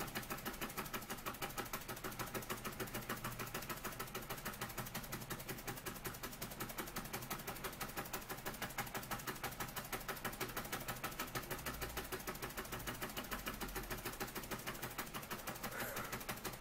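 Junior Engineer SE-100 model beam steam engine running steadily on steam, its small piston, beam and flywheel linkage making a fast, even beat of soft clicks.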